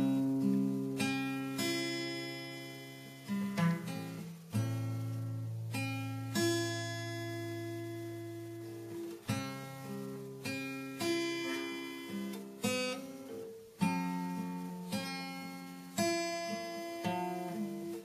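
Soundtrack music on an acoustic guitar: chords and single notes plucked every second or two and left to ring out.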